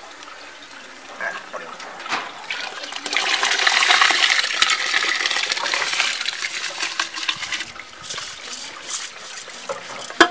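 Washed rice and water poured from a pot into a metal basin of water: a rushing, splashing pour that swells to its loudest a few seconds in and then breaks into trickles and patters. A single sharp knock comes near the end.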